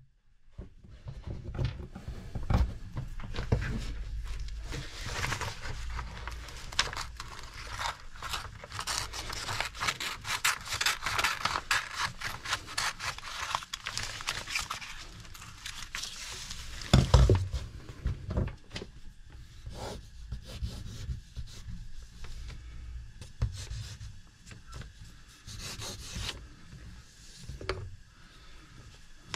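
Hands rubbing and handling a paper template taped with masking tape on a wooden workbench top: irregular scraping and rustling, louder in the first half, with one knock a little past halfway.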